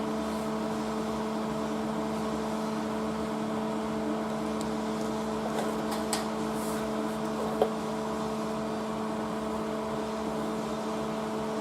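Steady electrical hum with a few faint ticks in the second half.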